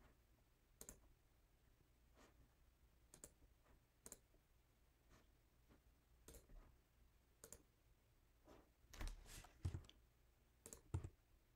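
Faint computer mouse clicks, single clicks about a second apart, with a few louder ones close together near the end, over near silence.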